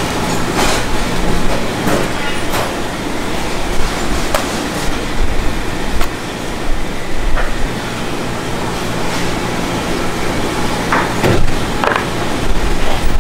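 Steady machinery running, a continuous rumble with a low hum, with scattered knocks and clatters on top.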